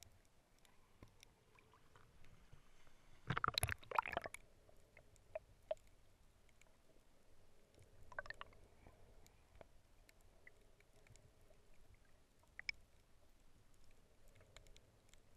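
Underwater sound picked up through an action camera's waterproof housing: scattered faint clicks and crackles, with a loud cluster of crackling knocks about three to four seconds in and a smaller one midway.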